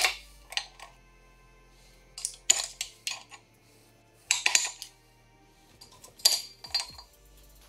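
Sharp metallic clinks and knocks in short clusters as the main bearing caps of a Ford 5.4 V8 block are worked loose with a screwdriver and by hand, and set down.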